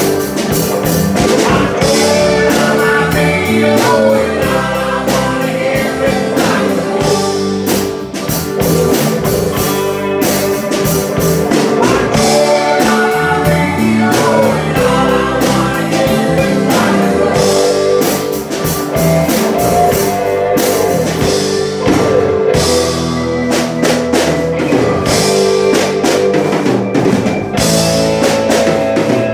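Rock music with guitar and drums playing loud and without a break, the drums marking a steady beat.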